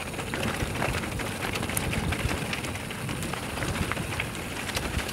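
Mountain bike riding fast down a rough stony dirt trail: tyres crunching over gravel and the bike rattling with a dense run of small clicks and knocks over a low rumble.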